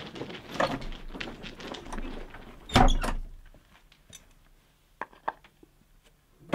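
Shuffling feet and light clatter, then one loud wooden thunk about three seconds in, such as a heavy door or hatch banging; two light knocks near the end.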